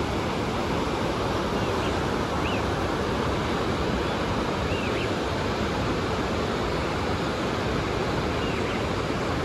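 Steady rushing of a mountain river, an even roar of fast water, with a few faint high chirps over it.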